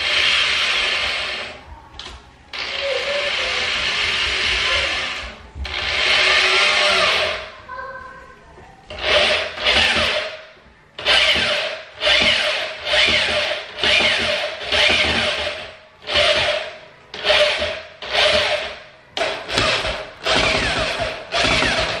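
Corded electric drill boring knob holes through a cabinet door: three long runs of the motor early on, then a quick string of short trigger squeezes, a little over one a second.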